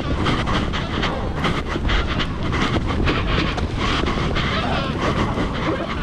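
Wind buffeting a body-worn action camera's microphone as the wearer runs across sand, with a quick, regular run of footfall thuds and jostling.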